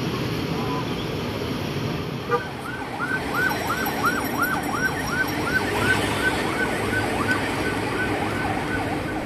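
Steady traffic and crowd noise, with a siren starting about two seconds in and yelping rapidly, about three falling sweeps a second.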